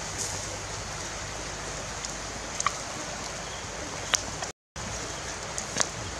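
Fish and prawns sizzling on a wire grill over an open wood fire: a steady hiss with a few sharp pops and crackles. The sound cuts out for a moment a little after four seconds in.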